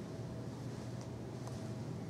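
Steady low hum of room tone, with two faint ticks about one and one and a half seconds in.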